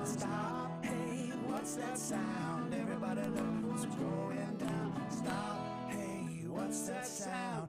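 Live acoustic band playing an instrumental break: acoustic guitar strumming under a resonator guitar, with a lead line that bends and slides in pitch.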